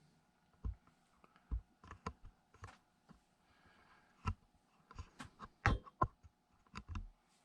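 Irregular clicks and light taps from the keys of a Brother SX 4000 electronic typewriter being handled, scattered unevenly across several seconds.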